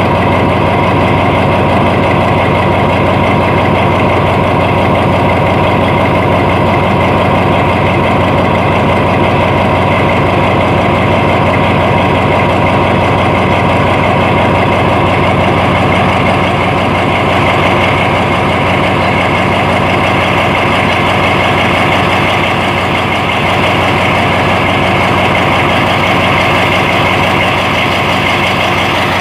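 Diesel locomotive engine idling, a loud steady running sound that holds the same pitch throughout.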